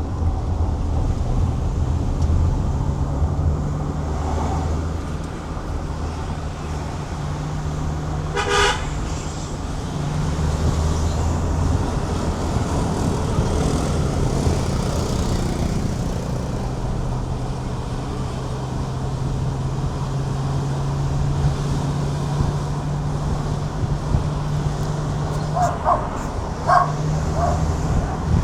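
Car engine and road noise heard from inside the moving car, a steady low hum that shifts now and then with speed. A short vehicle horn toot sounds about eight seconds in, and a few short beeps come near the end.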